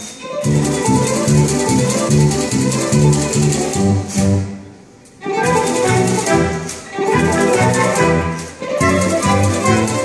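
A small orchestra of flutes, saxophone and brass plays a brisk light tune while a typewriter clacks rapidly along as the solo percussion. The playing thins out briefly around the middle, then comes back in full.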